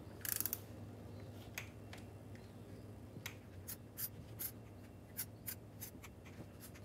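Click-type torque wrench on the fuel pump mounting bolts: a quick run of ratchet clicks at the start, then single sharp clicks spaced out through the rest, as the bolts are brought to 50 inch-pounds.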